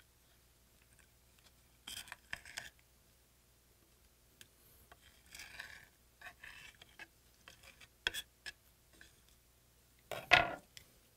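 Metal knife and fork scraping and clicking on a ceramic plate as raw stingray liver is cut into pieces, in scattered short strokes, with one louder scrape about ten seconds in.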